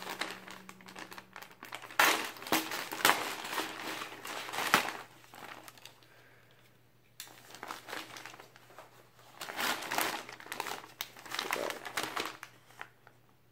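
Packaging crinkling and rustling in irregular bursts as a package is torn open and unwrapped by hand, with a pause of a second or two about halfway through.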